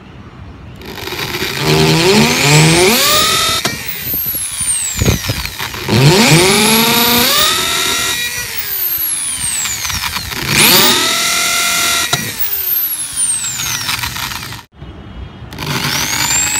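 Hitachi electric drill boring holes through a bamboo tube: the motor whines up to speed and winds down again three times, then starts up a fourth time near the end.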